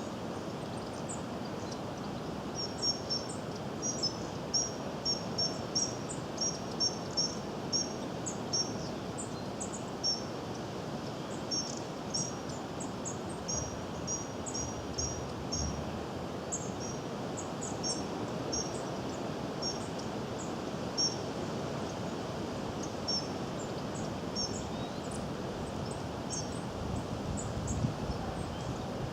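Goldcrest giving very high, thin calls: many short notes in quick pairs and runs, thickest in the first half and scattered later, over a steady background hiss.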